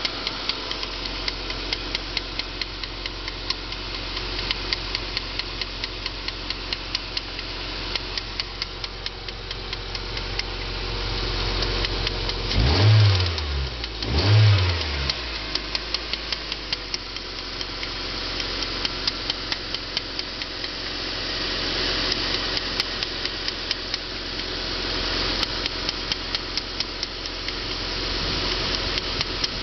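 VAZ 2112 1.6-litre engine running with a regular, evenly spaced knock coming from around the timing belt cover. The source of the knock is not identified. Near the middle the engine is briefly revved twice, and the knock carries on between and after the revs.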